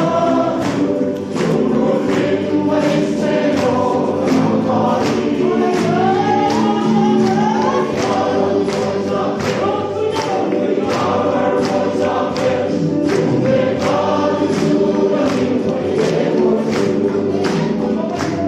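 A men's choir singing a gospel hymn in parts, the voices held and moving together over a steady beat about twice a second.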